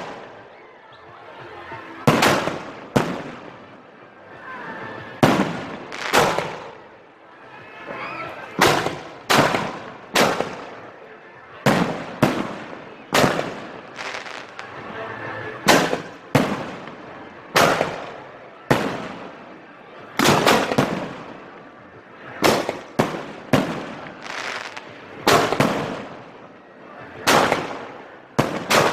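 Fireworks going off in a steady string of loud, sharp bangs, roughly one or two a second, each followed by a rolling echo that dies away.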